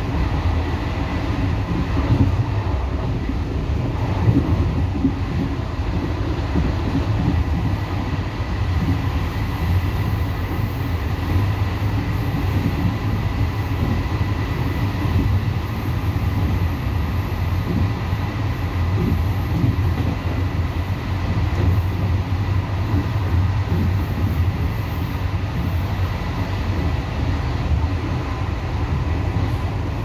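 Passenger train running along the track: a steady rumble of wheels on rail, with a faint high steady tone above it.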